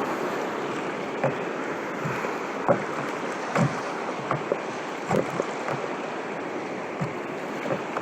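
Sea water washing steadily around a fishing kayak, with irregular small slaps of water against the hull.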